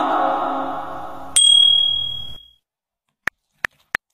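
A held musical tone fades out. About a second and a half in, a single bright bell-like ding rings out and dies away. After a short silence come a few short, sharp clicks at uneven spacing.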